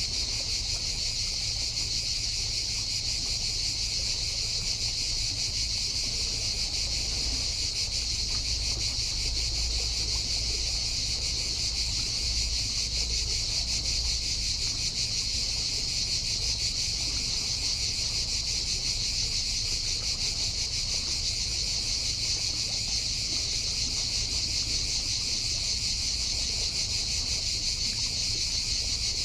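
Chorus of cicadas buzzing steadily in a dense, high-pitched drone, with a low rumble underneath.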